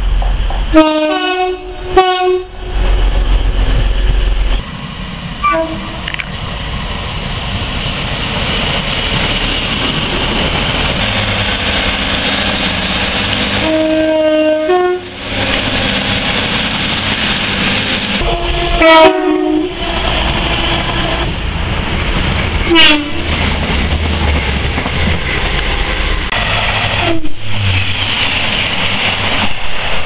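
Horns of British passenger trains sounded in about six separate short blasts, several of them two notes one after the other. Between the blasts is the steady rumble of trains running through the stations.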